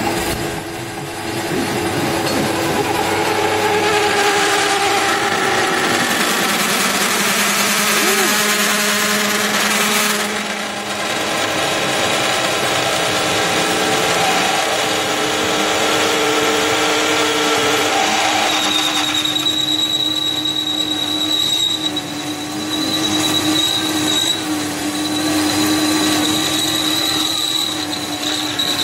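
Metal lathe drilling into a large stainless steel boss with a big twist drill in the tailstock: the machine runs steadily under the cut with several held shrill tones from the drill. About two-thirds of the way through, a high steady whine takes over.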